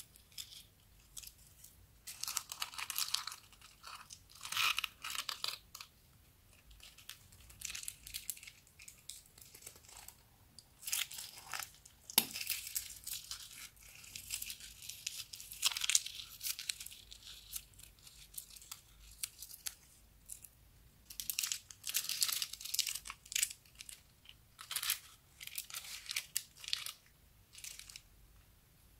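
Plastic piping bags crinkling and crackling as they are squeezed, with sticky crackles of glitter-filled glue pressed onto a glittery slime base. The crackles come in irregular bursts with short pauses between them.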